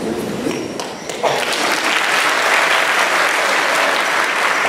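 Audience applauding, starting suddenly about a second in and going on steadily.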